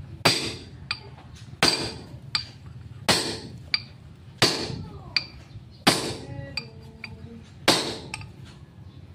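Hammer blows on steel, driving a king pin bushing into a Mitsubishi Canter's steering knuckle: six ringing strikes about one and a half seconds apart, with lighter taps between.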